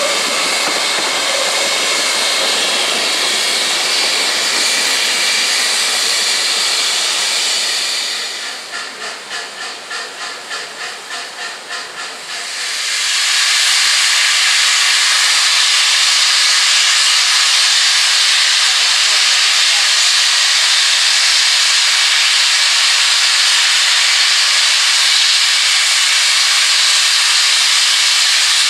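Steam hissing from the standing LMS Princess Coronation class Pacific 46233 Duchess of Sutherland. About eight seconds in the hiss drops back and pulses about three times a second, then at about thirteen seconds a louder, steady hiss takes over as a big cloud of steam vents low at the front of the locomotive.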